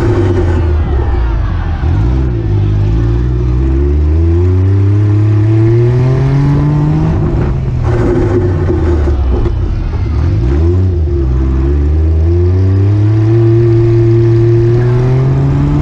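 Daihatsu Mira's small engine heard from on board, accelerating hard: its pitch climbs in long sweeps, falls back twice, then climbs again and levels off.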